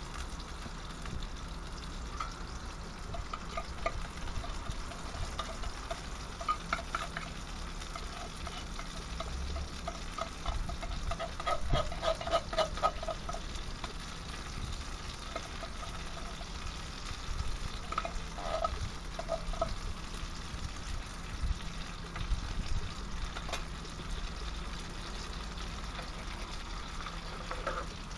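Sliced smoked sausages frying in a pan, with canned chili con carne being scraped in and stirred. A utensil repeatedly scrapes and clicks against the metal, loudest in a run of strokes about twelve seconds in.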